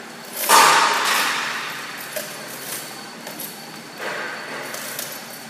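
Pneumatic cylinders of a CNC vertical four-corner PVC window welding machine releasing their air: a sudden loud hiss about half a second in that fades away over a second or so, then a shorter, fainter one about four seconds in.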